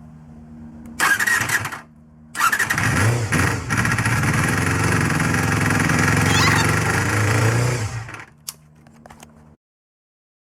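Honda MC23 Jade's 250 cc inline-four engine being started: a short burst of running, then about half a second later it fires again and runs for about five seconds, with the revs swelling near the start and again near the end, before it cuts off.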